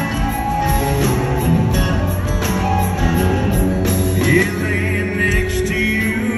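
A live country band playing through a concert sound system, with a steady beat.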